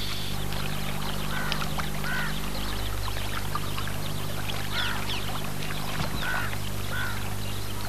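Ducks calling on the water: several short, arched calls spaced a second or more apart, over a steady low hum.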